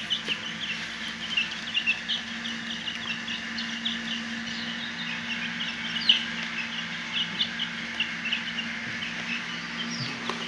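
Newly hatched chicks peeping continuously in short, high chirps as they feed, over a steady low hum.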